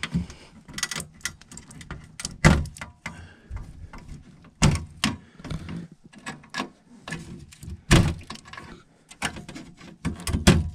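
Wire-harness plugs being pulled off a Trane S9V2 furnace control board: a string of irregular clicks and knocks, with louder knocks a couple of seconds in and again near the end.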